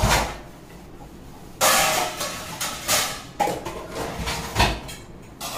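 Kitchenware being moved and set down: a series of knocks and clatters, the loudest about a second and a half in, and a heavy thump near the end.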